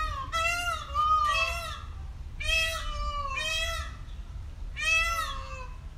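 A cat meowing again and again, about five calls of roughly half a second each, every one ending with a drop in pitch.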